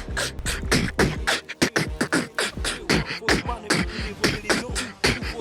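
A person beatboxing a fast, steady beat of mouth-made kicks and snares, about four hits a second.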